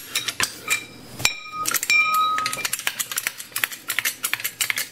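Quick, irregular metallic clicking and clinking, as of a floor jack and steel tools being handled and set under a car's rear suspension arm, with a brief ringing metal clink about a second in and another about two seconds in.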